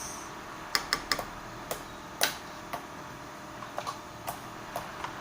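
A mixing tool stirring slime in a bowl, giving a dozen or so irregular sharp clicks and taps.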